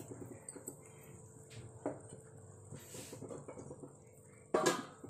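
Quiet kitchen pot sounds: a light tap about two seconds in and a short, louder clatter of a cooking utensil against the pan near the end.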